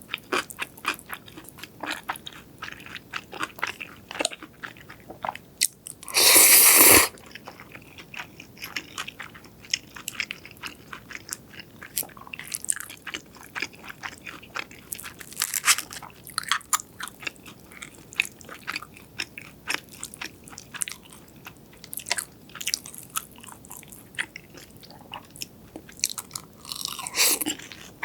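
Close-miked eating: steady chewing full of small crisp crunches, with a loud crunchy bite about six seconds in and another near the end.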